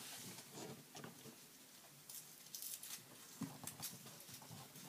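Faint rustling of paper with scattered small clicks and taps, a little busier in the second half.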